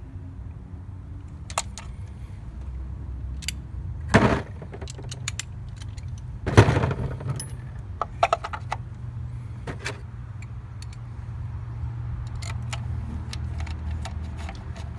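Small metal clicks and clinks from hand tools and a socket, with a few heavier knocks, the loudest about halfway through, as the plastic engine cover is fitted back and its 10 mm screw refitted. A steady low rumble runs underneath.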